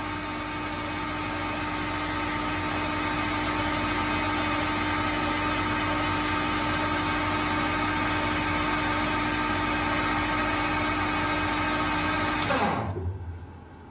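Proto-Trak CNC lathe spindle running steadily with a steady hum, while a Scotch-Brite pad is held against the spinning propeller shaft to polish it. Near the end the spindle is switched off and winds down, its pitch falling away.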